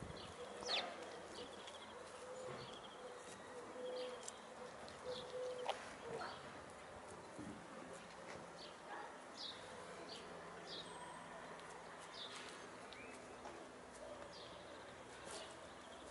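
Birds chirping faintly, short high falling chirps scattered throughout, with a faint steady hum through the first six seconds.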